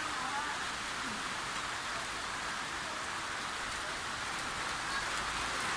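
Steady rain falling through trees, an even hiss with no break.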